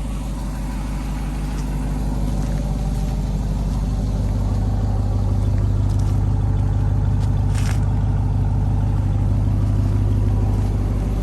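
Ram TRX's supercharged 6.2-litre V8 idling with a steady low hum, growing louder over the first few seconds and then holding steady. A brief hiss comes about two-thirds of the way through.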